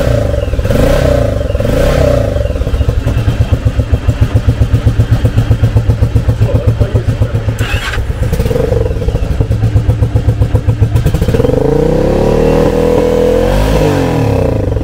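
V-twin cruiser motorcycle engine running through chrome Cobra straight-through exhaust pipes fitted with DB-killer baffle inserts, a rapid, even pulsing beat at idle. Near the end the throttle is opened and the revs rise and fall back to idle.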